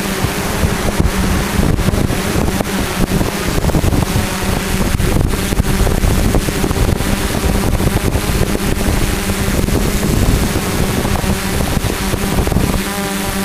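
Hexacopter's electric motors and propellers humming steadily, with wind buffeting the microphone.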